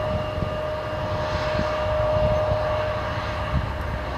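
Jet engines of an Embraer E170 airliner running on the ground, a steady whine over a low rumble.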